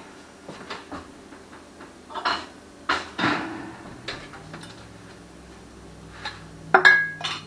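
Glass canning jars being handled, clinking and knocking: a few separate knocks, then a loud ringing clink of glass near the end.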